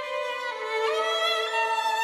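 Background music: a violin playing a slow melody of long held notes, with a slide up into a higher note about a second in.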